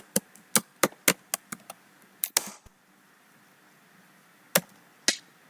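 Computer keyboard typing: an irregular run of about ten keystrokes over the first two and a half seconds, then a pause and two more keystrokes near the end.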